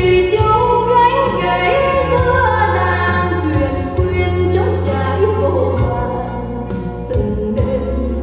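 Music with singing, played back from a cassette on a Yamaha K-1XW stereo cassette deck through a Sansui Seven receiver: a held bass under a wavering melody.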